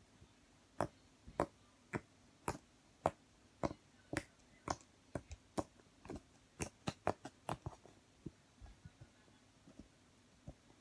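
Fluffy slime being squeezed and poked by hand, giving a string of sharp pops and clicks, about two a second, thinning out after about eight seconds.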